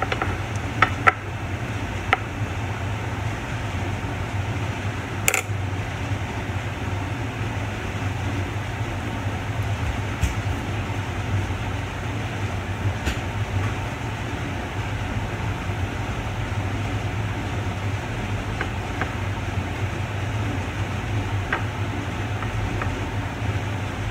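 A few light clinks of a metal spoon against a ceramic bowl, the sharpest about five seconds in, over a steady low hum.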